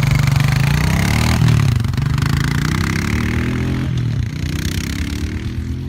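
Honda Rancher ATV's single-cylinder engine revving up and down several times, spinning the tires to throw packed mud off the treads; it eases off near the end.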